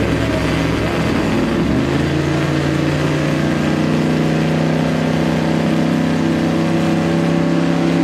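Drag-race car engines of a Ford Falcon and a Mercury Cougar running loud at the start line; about two seconds in the revs step up and are held steady, the cars staged and brought up to launch revs.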